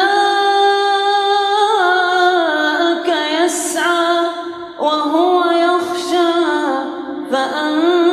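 A man reciting the Quran in drawn-out melodic tajweed style, holding long ornamented notes that glide up and down. There is a short pause for breath about five seconds in, then a new phrase begins.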